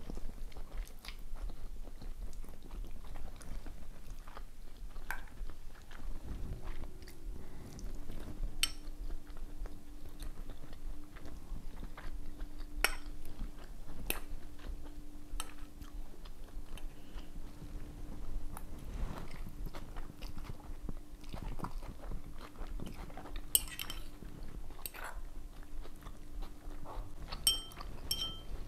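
Someone eating fried noodles: chewing, with cutlery clicking and scraping against a small bowl at irregular intervals. A faint steady low hum starts about six seconds in and stops shortly before the end.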